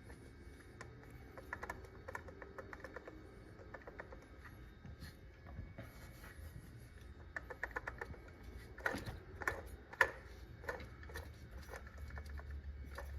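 BMW N47 diesel's electric coolant pump turned by hand with the drive belt off, giving faint, irregular clicking and rattling, loudest in a cluster about nine to ten seconds in. The clicking is the sign of a bad coolant pump that must be replaced.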